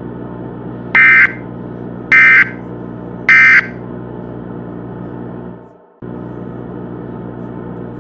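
Three short, loud bursts of Emergency Alert System digital data tones, about a second apart, typical of the SAME end-of-message code that closes an EAS alert. Under them is a steady low droning background music, which fades out about five and a half seconds in and cuts back in abruptly at six seconds.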